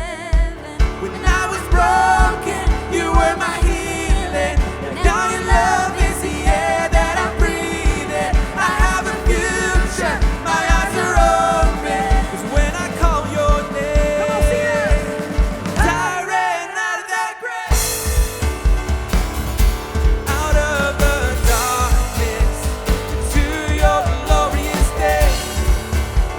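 Live church worship band playing with sung vocals over drums, guitar, piano and synth, the kick drum keeping a steady beat. About two-thirds of the way through, the drums drop out for a couple of seconds, then the full band comes back in.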